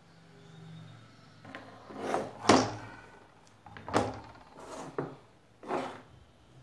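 Smooth pebbles clacking against one another and knocking down on a hard surface as they are stacked: a handful of separate knocks, the loudest about two and a half seconds in.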